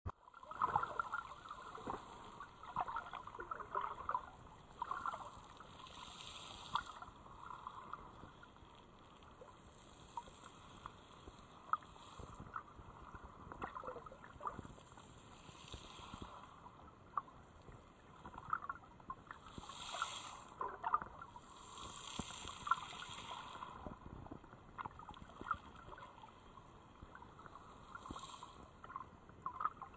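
Sea water sloshing and gurgling, heard with the camera underwater, with many scattered short clicks. A few louder swells of hiss come and go, the strongest about two-thirds of the way through.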